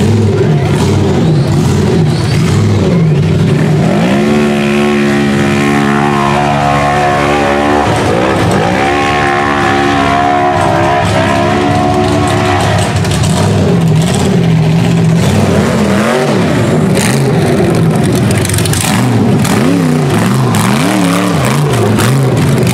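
Open-class off-road buggy engine revving hard on a hill climb. It holds high revs for a few seconds at a time, drops sharply and picks up again about eight seconds in, then rises and falls quickly in bursts of throttle.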